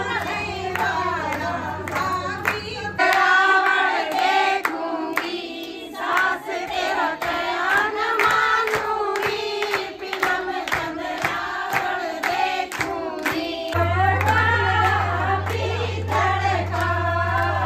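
A group of women singing a traditional folk song (geet) together, with steady rhythmic hand-clapping keeping the beat.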